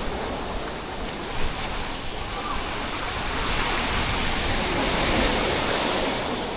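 Sea surf: small waves washing onto a beach in an even rushing hiss that swells a little past the middle and eases off near the end.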